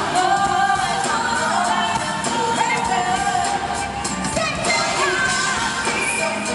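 Female R&B vocal group singing live over a full band, with sustained, gliding melody lines, recorded from the audience at an arena concert.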